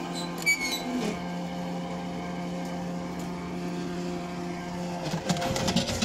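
Motor-driven winch of a small tripod drop-hammer pile driver running with a steady hum as it hoists the hammer. About five seconds in, the hum breaks and a burst of clanking and rattling starts.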